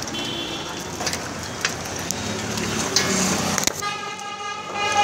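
Street traffic noise with scattered knocks and rustles. About three and a half seconds in, a steady horn tone starts and keeps sounding.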